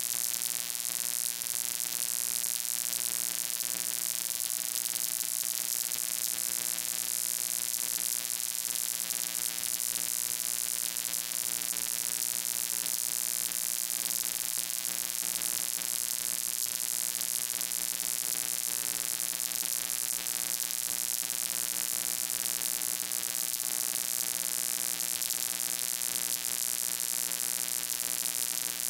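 A steady electrical buzzing hum with a loud hiss on top, unchanging throughout.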